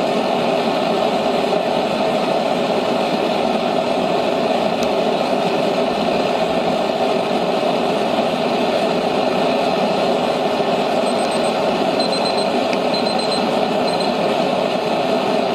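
Small propane forge's burner running with a steady, loud rush of gas flame. A few faint short electronic beeps come in near the end.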